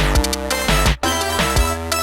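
Upbeat electronic background music: synthesizer notes over deep bass and a steady drum beat, with a short break about a second in.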